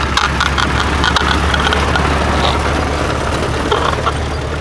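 1919 Ford Model T's four-cylinder side-valve engine running steadily as the car arrives, with a few sharp clicks in the first second or so.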